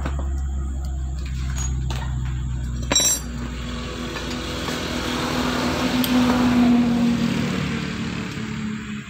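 A motor vehicle running off-camera, its low engine rumble giving way to a vehicle passing, which swells to its loudest just past the middle and then fades. A single sharp metal clink about three seconds in.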